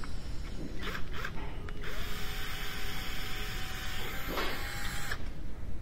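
Ridgid cordless drill/driver spinning out a fastener on the engine: two short blips of the trigger about a second in, then a steady run of about three seconds with a whine that rises as the motor spins up, cutting off near the end.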